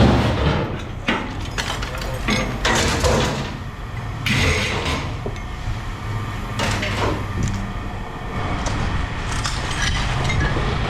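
Repeated clanks, knocks and clatter of scrap metal being handled and tossed, over a steady low hum.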